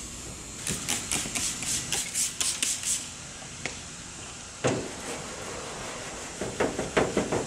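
Clay bar rubbed back and forth over car paint to lift epoxy paint overspray: a quick run of scrubbing strokes, about four or five a second, then a single knock and a few more rubbing strokes near the end.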